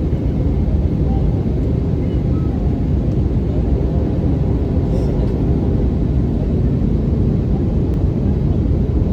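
Steady low rumble of an Airbus A320neo in flight, heard inside the passenger cabin: engine and airflow noise with no distinct events.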